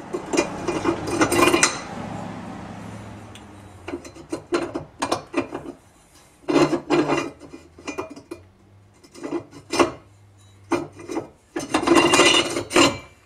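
A metal outboard-mount bracket being fitted to a jack plate: irregular clinks, knocks and scraping of metal on metal, with busier bursts of clatter at the start, around the middle and near the end.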